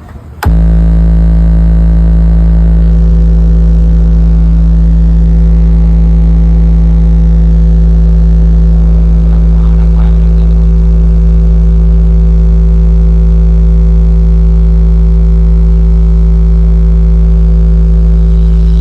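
Sustained low bass test tone from a DJ sound-check track, played very loud through a 14-bass-cabinet sound system. It starts suddenly about half a second in and holds one steady pitch with a stack of overtones above it.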